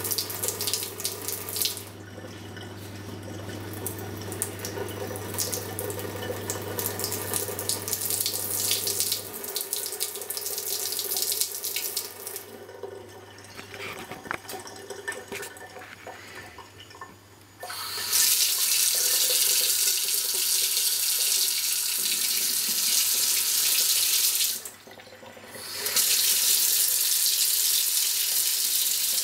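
Three-way kitchen tap running into a sink: first a thin stream of filtered osmosis water, with a steady low hum that stops about nine seconds in. From about eighteen seconds in, the tap runs a full stream that splashes loudly into the sink, stops briefly, then runs again.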